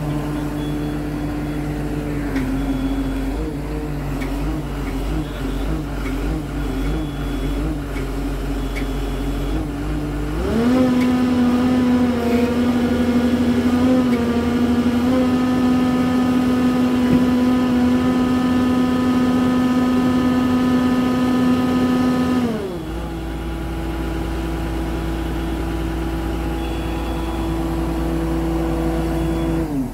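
Hyundai R215L crawler excavator running after start-up, its diesel engine holding a steady note. From about ten seconds in, for about twelve seconds, it grows louder with a whining hydraulic tone as the controls are worked, then eases back to steady running.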